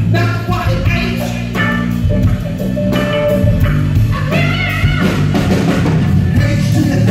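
Live rock band playing: electric guitar and drum kit, loud and continuous.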